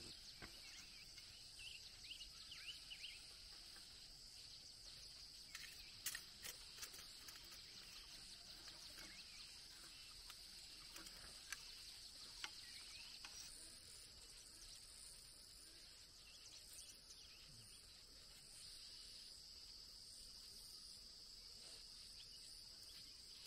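Faint, steady high-pitched insect chorus, with a few faint high chirps about two seconds in and a handful of light sharp clicks, the loudest about six and twelve seconds in.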